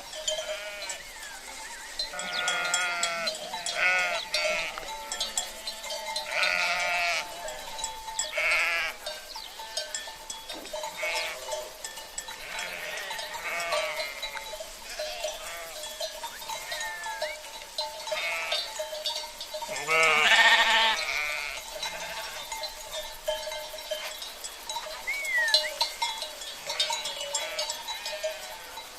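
A flock of sheep bleating again and again, with cowbells ringing among them; the loudest bleat comes about twenty seconds in.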